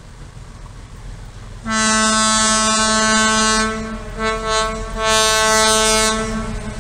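Horn of an approaching locomotive sounding a single-pitch note: one long blast of about two seconds, two short toots, then another blast of about a second, over a low rumble of the oncoming train.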